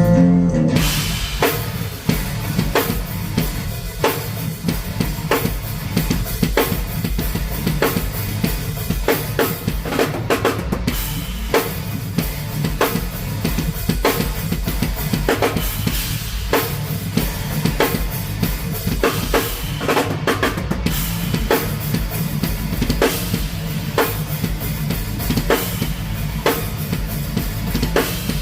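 Live band playing a song, the drum kit loudest with kick, snare and cymbals in a steady beat over sustained low bass notes.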